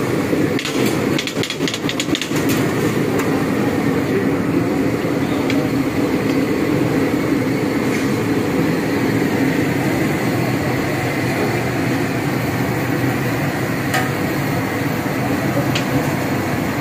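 Fish deep-frying in hot oil in a large steel karahi: a steady sizzling noise with a low rumble under it. About a second in comes a quick run of metal clicks from a spatula on the pan.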